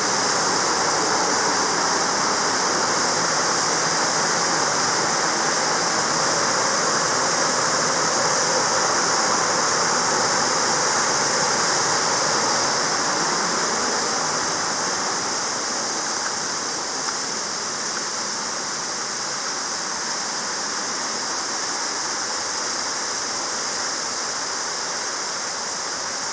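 Waterfall rushing: a steady, loud wash of falling water that becomes a little quieter about halfway through.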